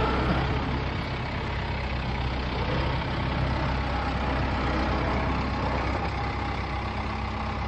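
A heavy engine idling steadily, with a low, even hum.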